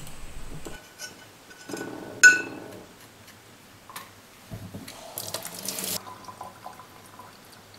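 Liquid sloshing in a small glass dish in a stainless steel sink as an etched brass nameplate is worked loose and lifted out, with one sharp clink against the glass about two seconds in and a short rush of water about five seconds in.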